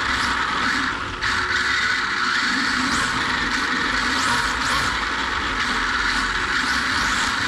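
Onboard sound of an RC drift car running: the electric motor and gearbox whine, rising and falling in pitch again and again as the throttle is worked, over a steady rush of gear and tyre noise. The sound drops briefly about a second in.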